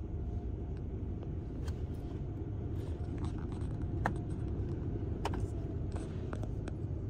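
Steady low rumble of a car running slowly, heard from inside the cabin, with a few faint clicks.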